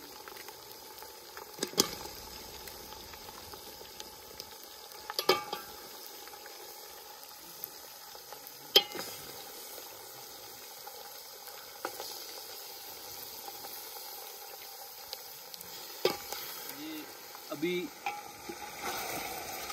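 Mutton pieces frying with a steady sizzle as they go into a pot of browned onions and spices, with a few sharp knocks or clicks scattered through.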